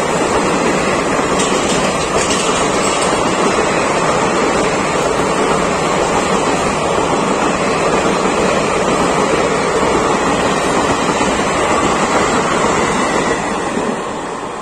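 Coaches of an Indian Railways express train running through the station at speed without stopping: a steady loud rush of wheels on rail and moving air. It fades near the end as the last coach goes by.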